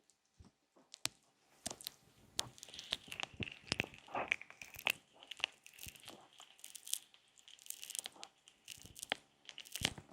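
ASMR ear massage: hands rubbing and pressing on an ear-shaped binaural microphone, giving dense close crackling and crinkling with many sharp clicks.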